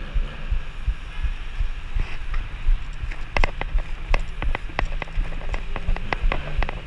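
Wind buffeting the camera microphone with low rumble from a bicycle rolling over the road. About halfway through, a run of sharp clicks begins, roughly four or five a second.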